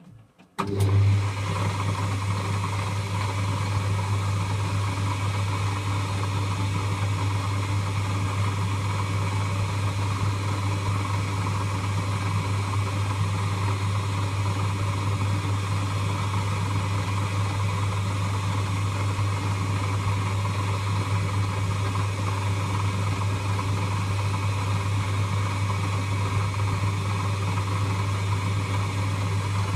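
Lathe motor switching on about half a second in and running steadily, with a strong low hum under a broad whirring noise.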